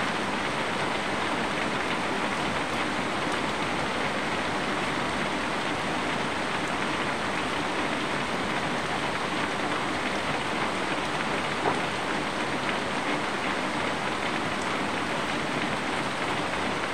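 Steady rain falling: an even, unbroken hiss, with one louder drop tapping about two-thirds of the way through.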